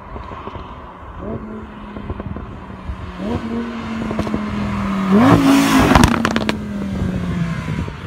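Lamborghini Huracán LP580-2's V10 approaching, its revs jumping up three times about two seconds apart as it downshifts. It passes close by with exhaust crackles and pops, and its note drops as it drives away.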